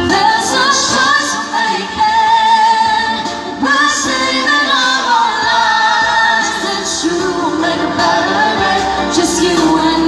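Live singing through microphones and a sound system, with a woman's voice carrying the melody and a wavering vibrato on held notes.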